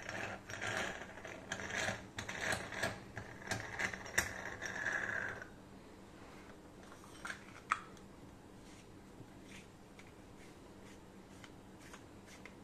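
Brass chakli press having its lid screwed onto the dough-filled barrel: a run of metallic clicking and scraping from the brass threads for about five seconds, then only a few faint clicks.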